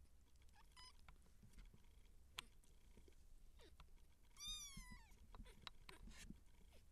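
Three-week-old Siamese kitten mewing softly: a brief squeak about a second in and a longer mew of about half a second near the middle that falls in pitch at its end, among faint rustles and small clicks.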